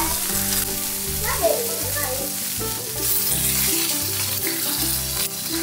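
Pork-belly-wrapped asparagus sizzling in a hot frying pan as the rolls are turned with metal tongs, with background music of steady bass notes underneath.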